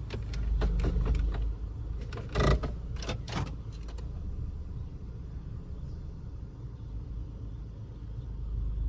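2008 Hummer H3 rolling through a turn with a steady low drivetrain rumble and a run of sharp pops and clunks in the first few seconds, the loudest about two and a half seconds in. This is the popping and binding the mechanic puts down to the four-wheel drive being stuck engaged.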